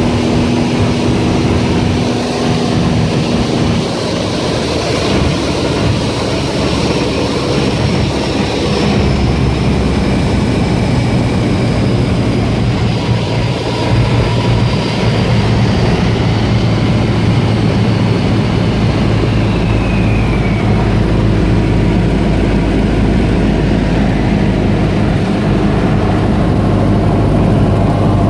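Single-engine light aircraft's piston engine and propeller droning steadily in cruise, heard from inside the cockpit. The low tone of the drone shifts slightly about nine seconds in.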